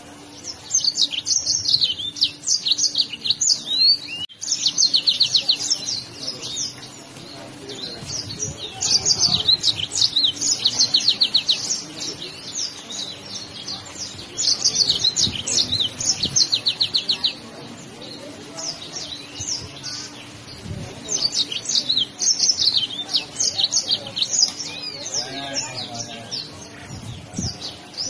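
Yellow-fronted canary (Mozambique canary) singing: bouts of fast, high trills and twittering, about four of them, broken by short pauses of a second or two.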